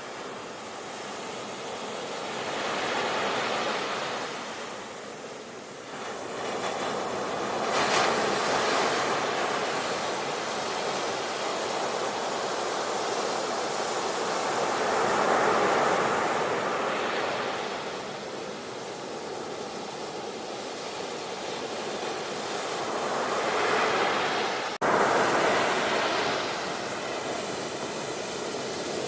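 Sea waves breaking and washing ashore, the surf swelling and falling back every several seconds, with a sudden break near the end.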